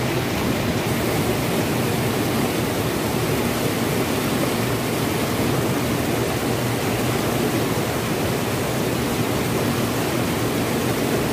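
Flood-swollen muddy river rushing steadily in a fast, churning current.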